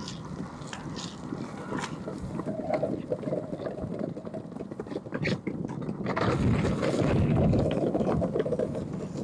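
Longboard wheels rolling over wet pavement: a steady rumble with occasional clicks, growing louder about six seconds in.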